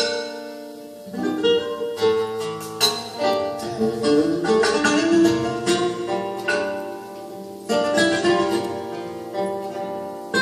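Acoustic flamenco guitars playing a slow ballad, plucked melody notes and chords ringing on. The playing thins out about a second in and again around seven seconds in before each new phrase picks up.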